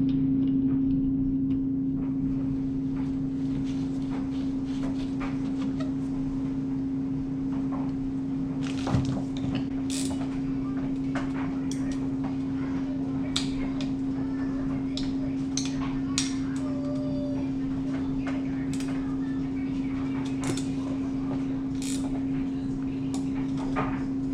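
A steady mechanical hum at one pitch, with scattered light clicks and knocks of metal tools and parts being handled, one sharper knock about nine seconds in.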